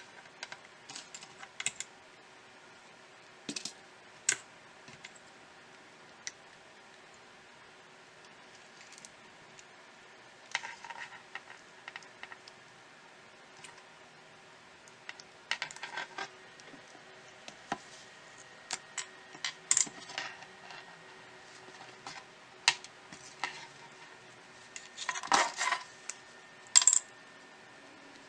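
Irregular small clicks, taps and clinks of hand tools and small phone parts being handled while a smartphone is worked on. Under them runs a faint steady hum, and the clicks come thickest near the end.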